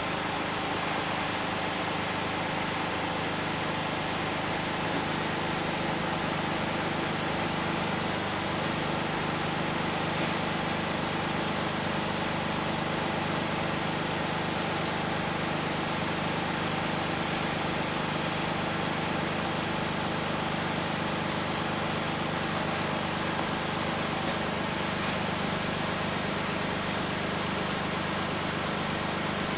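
2000 Lexus RX 300's 3.0 L V6 idling steadily, heard at the tailpipes through an aftermarket Delta dual exhaust that keeps the factory resonator. The engine has been running only a minute or two since start-up.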